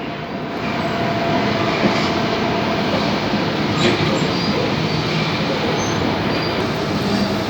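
Sydney suburban electric train running between stations, heard from inside the carriage: a steady rush and rumble of wheels on the track. A faint high tone in the first few seconds fades out.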